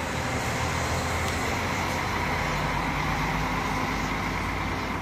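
Diesel coach bus engine running steadily with road noise as the bus turns and pulls away at low speed.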